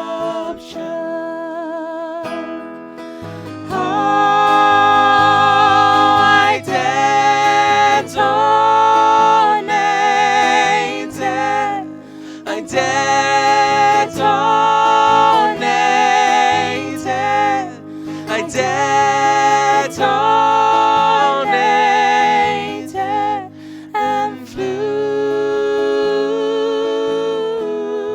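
Song's instrumental break: acoustic guitar accompaniment under a melody of long held notes with vibrato, getting fuller and louder about three and a half seconds in.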